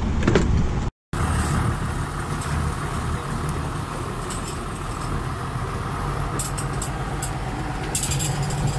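Farm tractor's diesel engine running steadily as it tows a loaded uplift trailer, heard from the trailer close behind it, with a few light clicks in the second half.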